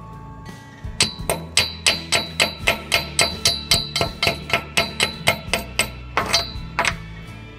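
Steel chipping hammer rapping quickly on a stick-weld bead, about twenty strikes at about three a second, each with a short metallic ring, knocking the slag off the weld.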